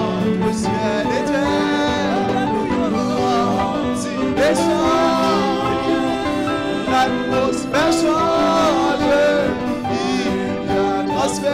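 A man's solo voice singing a gospel hymn through a microphone, with steady sustained chords underneath.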